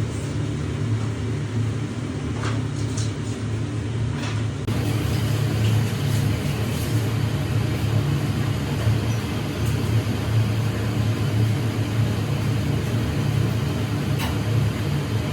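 Steady low rumble of a vehicle in motion. The sound shifts abruptly about five seconds in.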